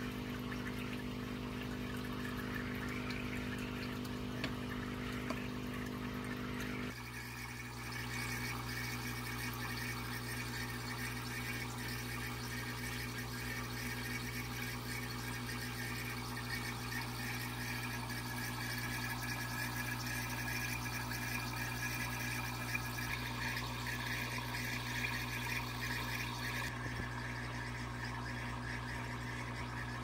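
Aquarium filters running: water pouring and trickling from the outflow over a steady pump hum. The hum and water sound change abruptly about seven seconds in.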